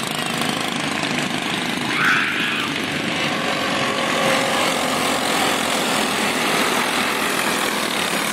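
A pack of racing go-kart engines buzzing at speed in a continuous dense drone, louder for a moment about two seconds in.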